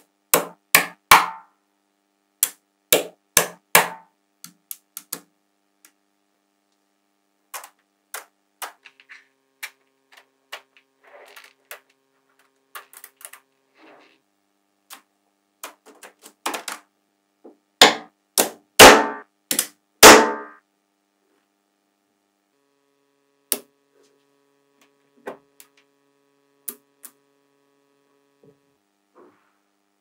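Small neodymium magnetic balls clicking and snapping against each other as blocks of them are handled and pressed into place, sharp clicks in irregular clusters, the loudest snaps around two-thirds of the way through.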